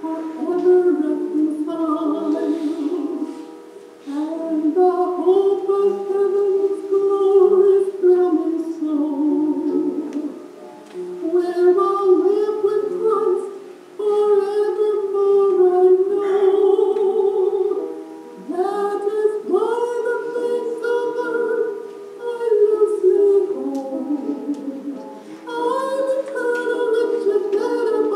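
Unaccompanied singing of a slow hymn, in long held phrases with short pauses between them.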